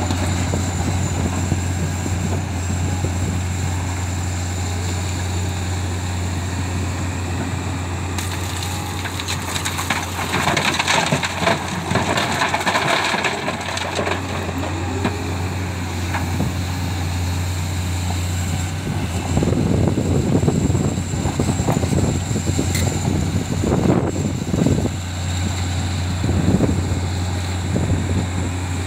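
JCB tracked excavator's diesel engine running steadily while it loads crushed stone into a dump truck. About ten seconds in, a rattling rush of rock pouring from the bucket into the truck's steel bed for a few seconds; in the last third, uneven crunching and scraping as the bucket digs into the stone pile.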